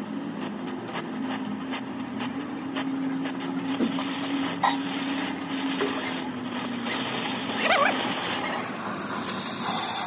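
Oxy-fuel cutting torch hissing steadily as it cuts through steel plate, throwing sparks. A steady low hum runs beneath it and fades about two-thirds of the way through.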